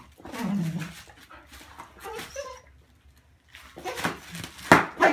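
Border collie giving short whining barks as it snatches at a sheet of bubble wrap, with the plastic rustling and a sharp pop or two near the end.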